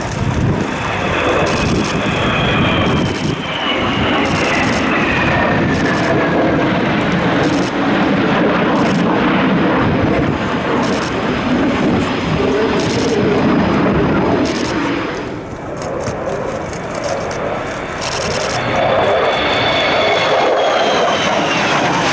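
Jet engines of an F-35B Lightning II and an EAV-8B Harrier II flying past in formation: a loud, continuous roar with a high whine that falls in pitch as the jets go by, heard once early on and again near the end as the Harrier passes close.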